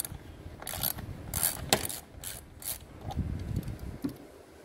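Ratcheting tap handle clicking in several short runs as a thread tap is cut into a drilled hole in an intake manifold, followed by some dull handling thumps about three seconds in.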